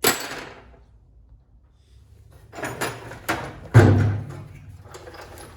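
Hand tools being put down and moved about on a work surface: a sharp clack at the start, then after a pause a run of clattering knocks with one heavier thump near the middle.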